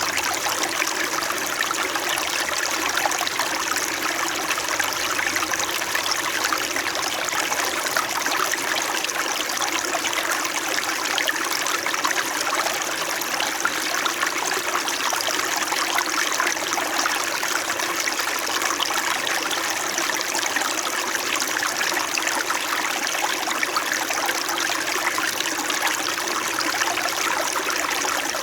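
Small shallow stream flowing and trickling over stones, a steady gentle babble.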